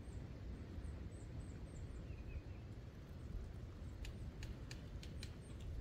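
Quiet swamp woodland: a small bird repeating thin, high chirps over a steady low rumble, with a quick run of about six sharp ticks or snaps about four seconds in.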